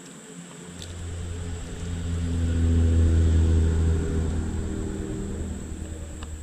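A motor vehicle passing by: a low engine rumble that swells to its loudest about halfway through and then fades.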